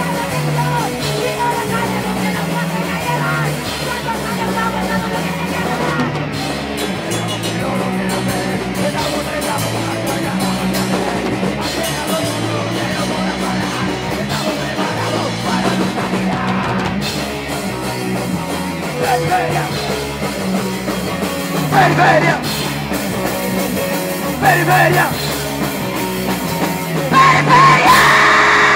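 Streetpunk band playing live: distorted electric guitars, bass and drum kit throughout, with a singer's voice coming in several times in the last third, loudest near the end.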